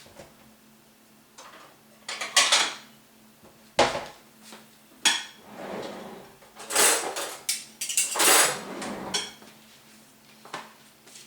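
Kitchen pots, dishes and utensils being handled: a run of knocks and clatters, with longer scraping and rattling in the middle.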